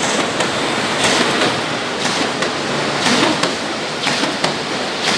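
Corrugated-cardboard box printing and die-cutting machine running: a loud, steady rushing machine noise with light irregular clatter.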